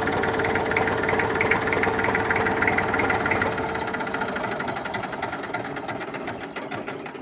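Vehicle engine running steadily with a knocking, ticking beat. It fades away gradually over the last three seconds.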